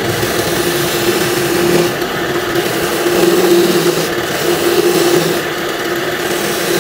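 Homemade electric coconut grater running: its motor-driven grating head spins with a steady hum while coconut meat is pressed against it and shredded, adding a dense rasping that swells and eases as the pressure changes.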